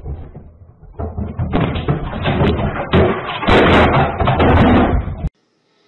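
A flat-screen TV toppling off its stand and crashing onto a tile floor, heard through a security camera's microphone as a loud, distorted clatter of knocks and bangs. It starts about a second in and cuts off suddenly shortly before the end.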